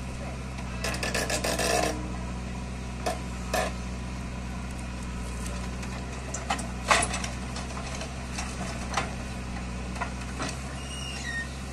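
Heavy diesel engine running steadily, with scraping and knocking as a JCB 3DX backhoe bucket digs into stony soil: a burst of scraping about a second in and sharp knocks around three and seven seconds in.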